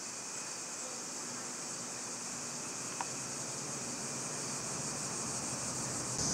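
Steady, high-pitched chorus of summer insects, with one short tick about halfway through.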